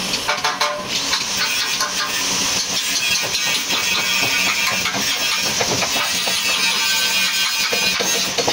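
A hammer striking the steel chassis frame rail of an accident-damaged Toyota Hilux Vigo: a run of irregular, sharp metal blows, over a steady background hiss.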